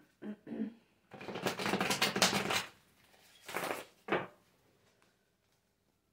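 A tarot deck being shuffled by hand: a dense run of rapid card-edge clicks lasting about a second and a half, then two shorter bursts of shuffling.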